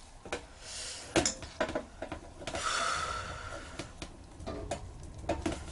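Screwdriver working a screw on a motorcycle carburetor body: a string of small clicks and metal taps, with a short hiss about a second in and a longer hiss around the middle.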